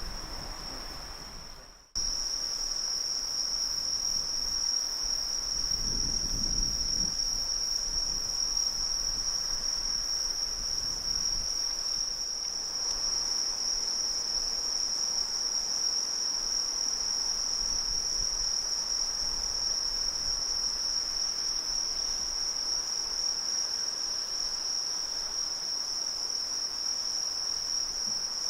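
Insect chorus of crickets chirring in one steady high-pitched tone. It drops out for a moment just before two seconds in, then carries on unchanged.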